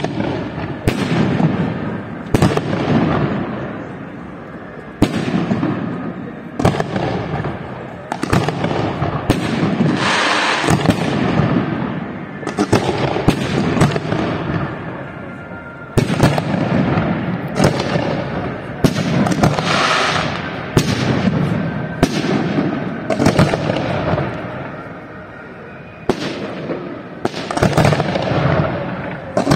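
Aerial firework shells bursting in a rapid series of sharp bangs, each followed by a rolling rumble of echo. Twice, about ten and twenty seconds in, a hissing rush rises above the bangs.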